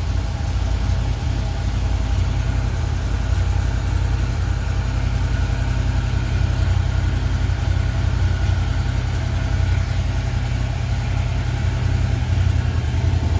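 Can-Am Defender side-by-side's engine idling steadily, a constant low hum.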